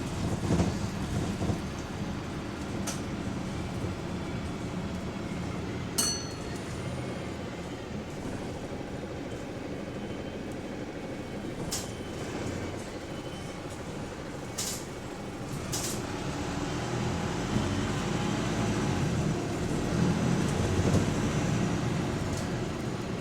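Bus engine and road noise heard from inside the bus while it is moving, with a few sharp clicks and rattles. The engine grows louder in the later part.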